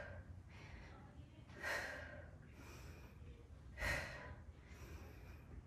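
A woman breathing hard through a set of bodyweight squats. There are two strong breaths about two seconds apart, with fainter breaths between.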